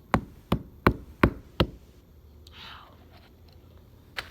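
Five quick, evenly spaced knocks of something hard against a hard surface, then a single knock near the end.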